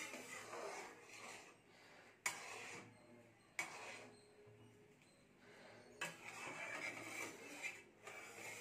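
Ladle scraping and stirring milk in a kadai as it reduces, kept moving so the milk does not catch on the bottom; the scraping comes and goes, with three sharp knocks about two, three and a half and six seconds in.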